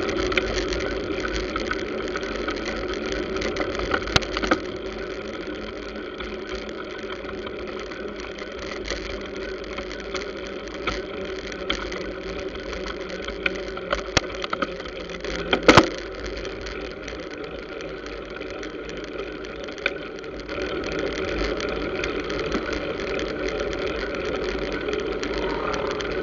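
Street traffic of motor scooters and motorcycles, engines running steadily alongside, with a few sharp knocks, the loudest a little past halfway. The drone gets louder about twenty seconds in.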